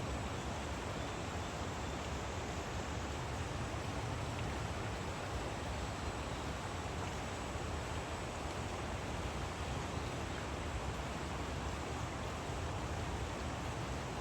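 Steady, unbroken rush of a mountain stream's flowing water, with no other distinct sounds.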